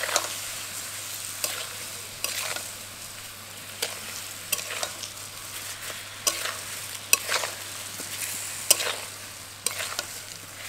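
Indian jujubes frying in mustard oil in a kadai, sizzling steadily, while sugar is stirred in. A spatula scrapes and knocks against the pan about once a second.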